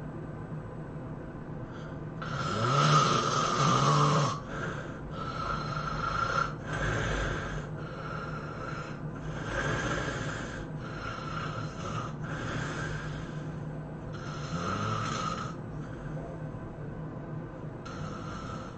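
A person snoring heavily in sleep. One long, loud snore with a rising rattle about two seconds in, then a run of shorter snoring breaths about a second apart, and one more near the end.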